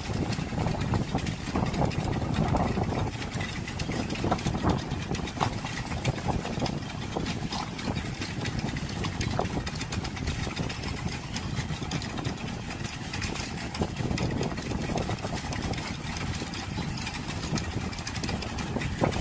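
A boat's engine running steadily at a low rumble, heard from on board.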